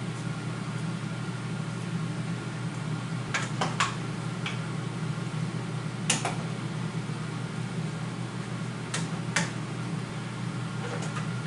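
Steady low hum of a kitchen appliance fan, with several scattered sharp clinks of a metal spoon against a roasting pan as diced chicken is stirred into the vegetables.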